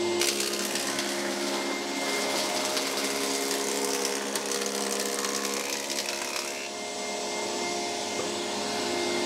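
Planer thicknesser running with its dust extractor while maple boards are fed through it: a steady machine hum under a hiss of cutting and chip extraction. The upper hiss drops away about six and a half seconds in.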